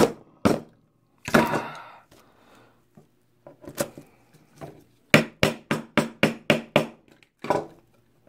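Hammer tapping brass pins through a knife's steel tang and glued wooden handle scales to drive a tight pin home. A few separate taps and a longer, noisier sound about a second and a half in, then a quick run of about seven blows, roughly four a second, and one last tap.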